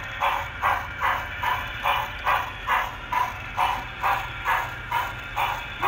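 Steam exhaust chuffing from the QSI Titan sound decoder in a Broadway Limited HO scale Santa Fe 4-8-4 Northern model locomotive running slowly. The chuffs come in an even beat of about two and a half a second.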